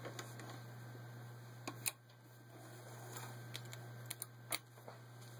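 A few scattered light clicks and taps from hands handling the sewing machine and the stitched denim, about ten in all, the sharpest about four and a half seconds in, over a steady low hum.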